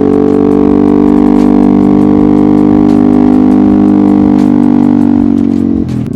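A vehicle horn held in one long, steady blast that cuts off near the end, over the running scooter engine.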